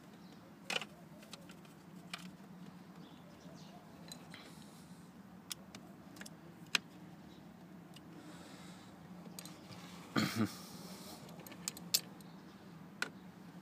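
Scattered small plastic and metal clicks from hands working at a steering column's clock spring (slip ring) and its screws, with one louder, brief rattle about ten seconds in, over a faint steady hum.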